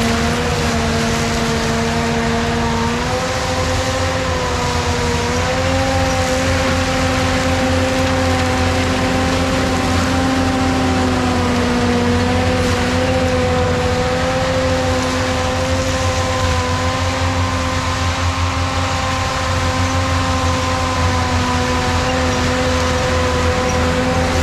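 ASV RT-120 compact track loader with a forestry mulcher head running at full throttle: a loud, steady engine and drum whine over a low rumble as it mulches brush and ground. The pitch steps up slightly about three seconds in and again about five seconds in.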